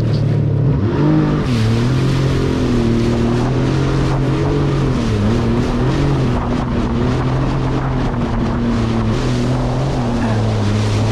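1100 cc jet ski engine running hard under way, its pitch dipping and rising several times as the throttle is worked, over a steady rush of wind and water.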